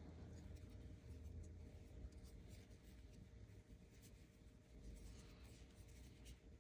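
Very faint scratching and rustling of a crochet hook pulling yarn through stitches, over a low steady room hum.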